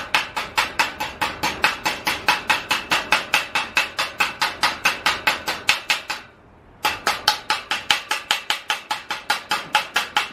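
Spring-handled chipping hammer rapidly striking the fresh weld bead where a steel gate-wheel bracket meets square steel tubing, knocking the weld clean. Even taps at about five a second, with a short pause about six seconds in before they resume.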